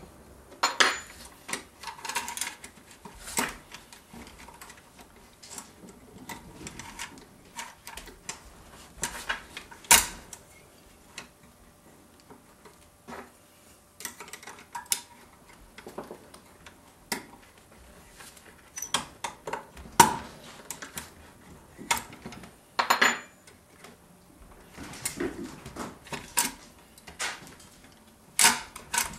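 Steel parts of a Remington Model 740 Woodsmaster's action clicking and clinking as the recoil-spring rod assembly and action bar are worked by hand to seat them. The clicks are light and irregular, with a few sharper ones scattered through.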